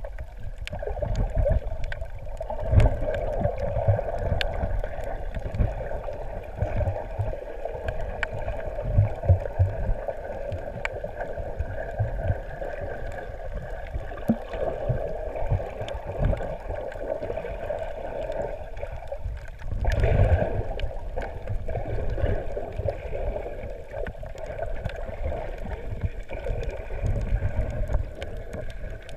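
Underwater sound through a submerged camera: a steady droning hum with muffled water movement, irregular low thumps and scattered small clicks. The thumps grow louder for a moment about twenty seconds in.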